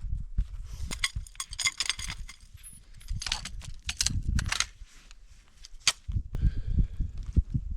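Collapsible snow shovel digging into packed snow: a series of irregular crunching strikes and scrapes with low thuds, easing off briefly about five seconds in.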